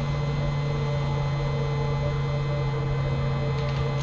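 A steady low hum with a few fainter steady higher tones over it, unchanging throughout.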